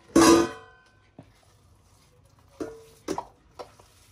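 A stainless steel mixing bowl rings loudly for about half a second after a knock, then several short, lighter knocks follow about a second apart as the plastic food-chopper bowl is knocked against it to empty out the chopped chicken.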